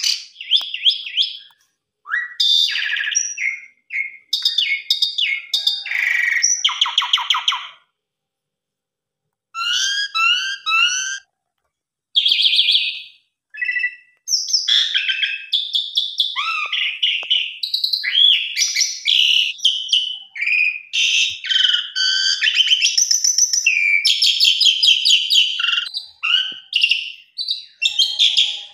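Asian pied starling (jalak suren) singing a rapid, varied song of whistles, chirps and buzzy trills packed with fill-in phrases, pausing for about a second and a half about eight seconds in.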